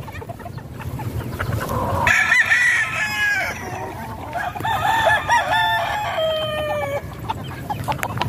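Gamecock roosters crowing, several calls overlapping and following one another from about two seconds in until near the end, with hens and roosters clucking.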